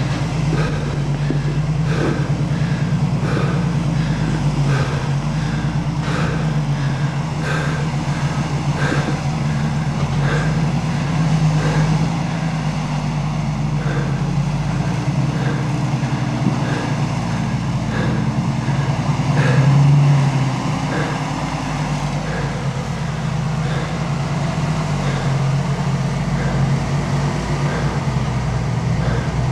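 Toyota 4Runner's engine running at low revs as it crawls over boulders, a steady drone that swells briefly about two-thirds of the way in. A light, regular ticking about twice a second runs over it.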